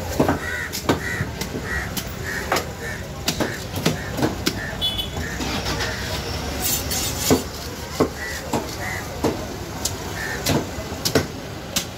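Large knife scraping down the tough scaled skin of a titan triggerfish, a sharp scrape about every half second. Street traffic rumbles underneath, with short crow-like calls.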